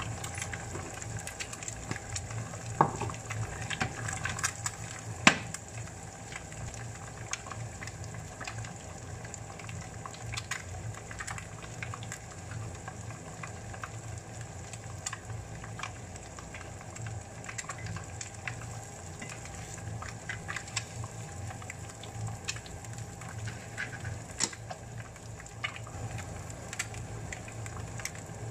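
An egg frying in butter in a nonstick frying pan: steady sizzling with many small crackles and spits, and one sharper click about five seconds in.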